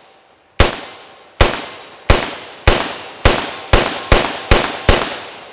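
A BCM AR-15 rifle with a Hammer Comp muzzle brake firing nine rapid semi-automatic shots, each with a short echo, the shots coming faster toward the end.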